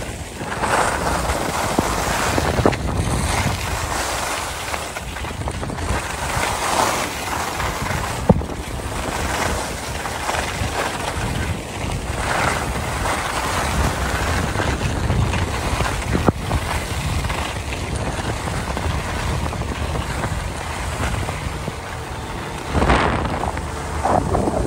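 Skis sliding and scraping over packed snow on a downhill run, rising and falling in repeated swells, with wind rushing over the microphone. A few sharp clicks stand out.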